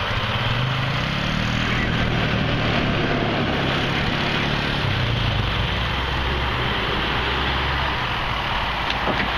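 Vehicle engine running steadily, a low hum under a broad rush of noise. The hum changes pitch about halfway through and again near the end.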